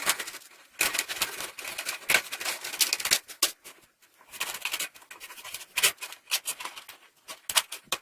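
Scissors cutting through a plastic half-gallon milk container: irregular snips and crackling of the thin plastic, in bursts with short pauses.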